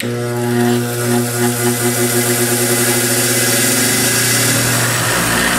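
A Craftsman Professional 8-inch, 1-horsepower bench grinder is switched on and runs steadily, with a steady electric motor hum and the whir of the spinning wheels.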